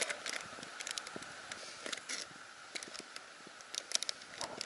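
Handling fishing tackle while re-rigging: scattered light clicks and ticks with faint rustling, over a steady outdoor hiss.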